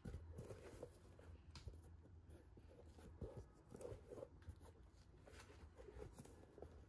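Faint rustling and scratching of fingers handling an Air Jordan 1 high-top sneaker, pulling at its padded nylon collar and tongue, in a string of soft irregular scrapes over a low steady hum.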